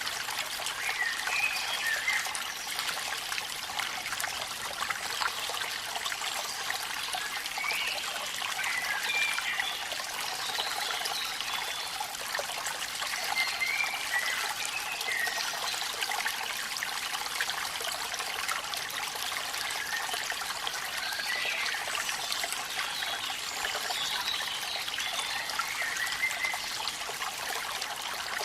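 Waterfall in the rain: a steady rush of splashing water. Short, wavering higher notes come and go every few seconds over it.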